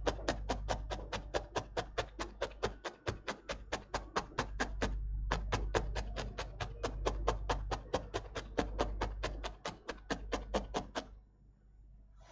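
Double 40-gauge felting needle stabbing repeatedly into loose core wool packed in a metal heart-shaped cookie cutter: quick, even ticks at about six a second, with a brief pause about five seconds in, stopping shortly before the end.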